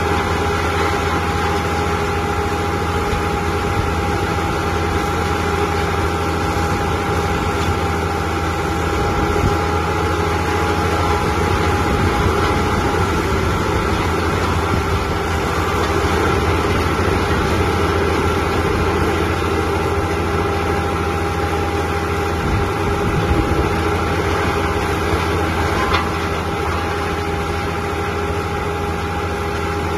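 Diesel engine of a mobile drum wood chipper running steadily, with a steady whine above the engine's hum.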